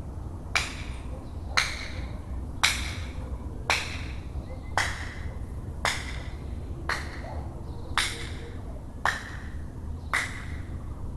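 A person clapping hands loudly and slowly, a single sharp clap about once a second, around ten claps in a steady rhythm.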